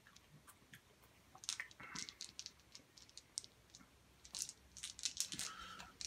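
Small hard sour candies clicking and rattling against each other in cupped hands: faint, irregular clicks, densest in the middle few seconds.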